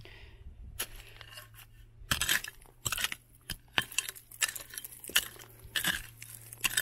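Digging tool striking quartz stones in a dirt bank: an irregular string of sharp clinks and knocks, starting about a second in.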